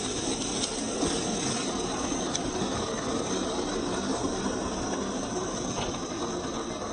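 Motor and gear whir of a 1:10 scale RC4WD Trail Finder 2 Toyota Hilux crawler driving slowly over loose rocks and gravel, with a few small clicks.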